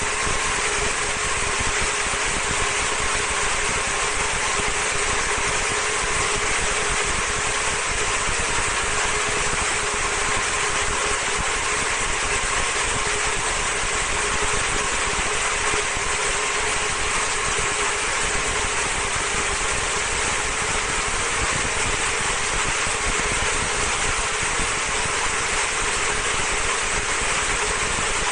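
Vertical high-speed slitting rewinder running steadily as it winds clear film onto its rewind shafts: an even mechanical hum with a faint steady whine.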